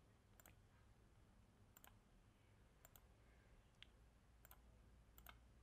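Faint computer mouse clicks, about six of them spaced a second or so apart, over near-silent room tone.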